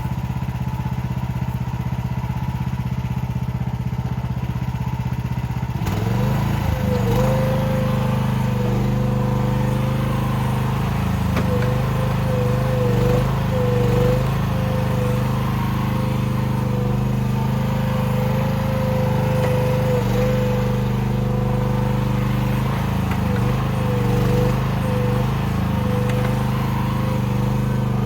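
Chinese mini excavator's engine running steadily, then throttled up about six seconds in and held at full throttle, with a wavering whine over the engine note.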